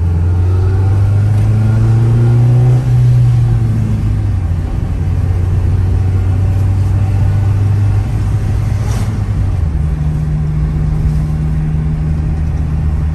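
2000 Acura Integra GSR's four-cylinder engine pulling away and accelerating, heard from inside the cabin. The engine note climbs for about three seconds, dips briefly, then holds steady, and drops to a lower note about ten seconds in.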